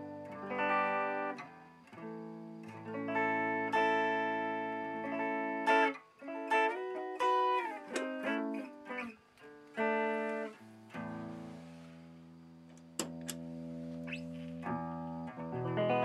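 Electric guitar played through an effects pedal chain, picking single notes and short phrases, then letting a low chord ring out from about eleven seconds in, with a few sharp clicks over it.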